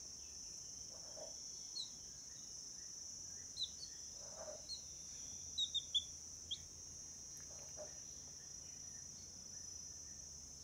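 Steady high-pitched insect drone, like crickets, with about ten short, sharp bird chirps scattered over it. The chirps bunch together in a quick run around the middle.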